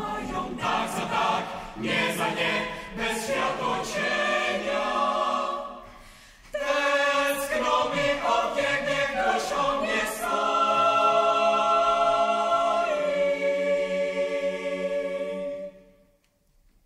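Mixed youth choir singing a cappella. About six seconds in the voices drop away briefly, then come back in louder and hold a long chord that is cut off near the end.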